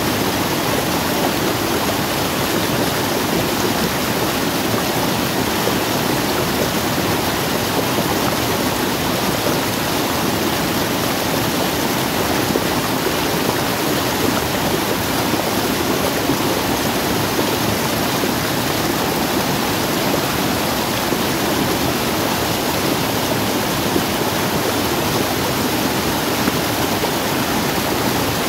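Muddy, rain-swollen stream rushing steadily over a small rocky cascade, a loud even roar of water.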